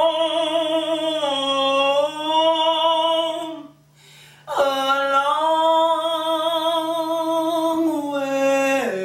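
A woman singing unaccompanied, holding long notes with vibrato in two phrases of about four seconds each, separated by a short breath. Each phrase ends in a downward slide in pitch.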